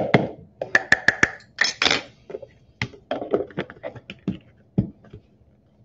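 A quick run of clicks, taps and a brief scrape: a knife levelling a quarter-cup measure of flour, the measure emptied into a stainless steel bowl, and the plastic lid pressed back onto the flour bin.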